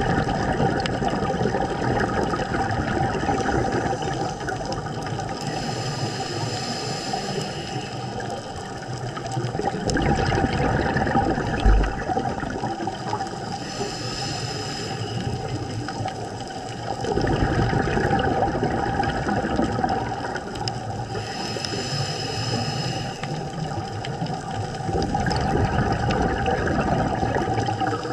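Scuba diver breathing through a regulator underwater: three hissing inhales about seven or eight seconds apart, each followed by a rush of exhaled bubbles, over a steady hum. There is a brief thump near the middle.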